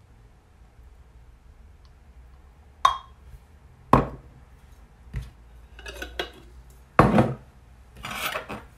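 Glass jars clinking and knocking against each other and on the worktop as the jars are handled and set down: a quiet start, then about five sharp knocks a second or so apart, one with a short glassy ring. The loudest knock comes near the end.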